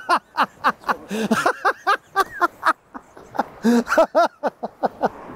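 A man laughing hard: a string of short voiced bursts of laughter, with a brief lull about halfway through.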